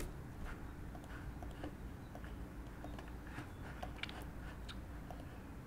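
A few faint, scattered clicks from a computer mouse, over a low, steady hum.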